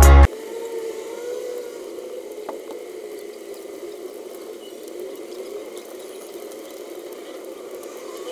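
Loud electronic music cuts off just after the start. After that comes a low, wavering, engine-like hum, with a single faint snap about two and a half seconds in.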